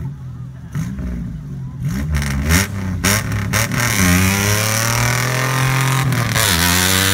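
1995 Ford Ranger pickup's engine revved in short bursts, then held at high revs as it drives through a mud pit, dipping briefly about six seconds in before climbing again.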